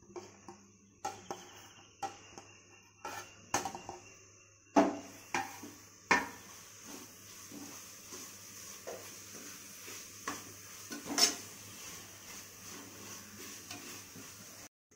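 Steel spoon knocking and scraping against the inside of a metal pressure cooker while stirring herbs into thick masala: a string of sharp clanks, the loudest about five seconds in and another about eleven seconds in.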